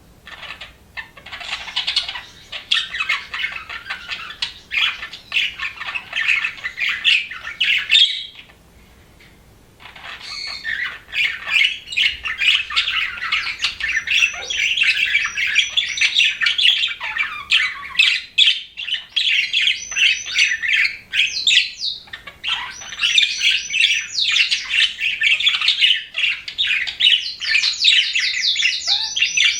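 Budgerigars chirping and warbling in a fast, dense chatter, with a lull of about two seconds some eight seconds in. Near the end comes a rapid run of repeated high chirps.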